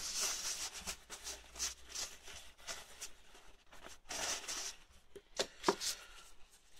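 Paper tissue being rustled and torn off as it is handled, in two hissy stretches, with a few light clicks and knocks about five and a half seconds in.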